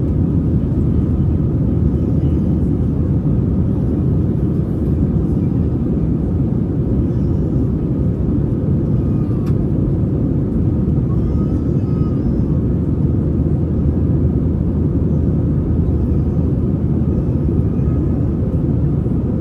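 Airbus A320 cabin noise: the engines and rushing air make a steady, dense low rumble, with a faint steady high tone above it.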